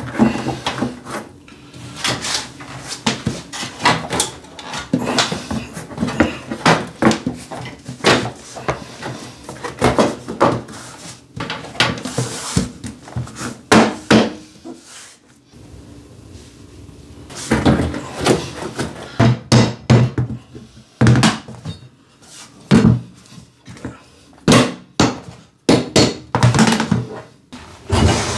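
Vinyl floor planks being handled and pressed into place on a floor: an irregular run of sharp knocks and clicks, with a quieter stretch about halfway through.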